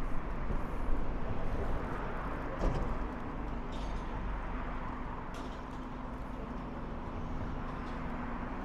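Road traffic on a busy street: cars driving past in a steady wash of engine and tyre noise, with a short knock about two and a half seconds in.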